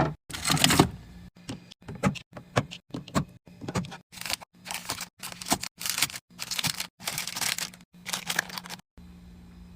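Packaged snacks and drinks being handled and placed: plastic wrappers crinkling, with small knocks and clicks. The noise comes in short bursts that cut off abruptly, over a low steady hum.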